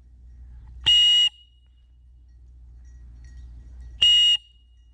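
Two long blasts on a dog whistle, each under half a second, about a second in and again near the end, a steady high note: a recall signal calling the bird dog in.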